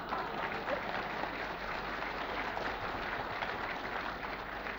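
Audience applauding, starting suddenly and going on steadily as a dense mass of clapping.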